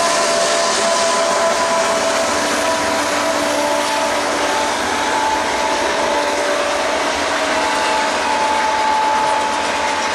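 Double-stack intermodal freight train passing at track speed: a steady roar of steel wheels on rail. It begins with the mid-train GE ET44AC diesel locomotive going by, followed by container well cars, with a few faint high tones that drift slightly lower.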